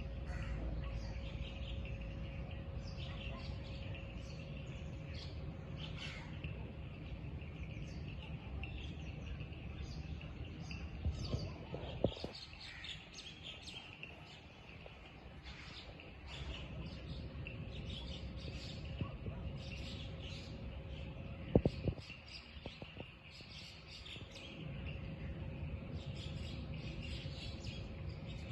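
Many birds chirping, a dense stream of short, high calls, over a low steady rumble and a faint steady hum. A few sharp clicks or knocks stand out about halfway through and again about three-quarters of the way in.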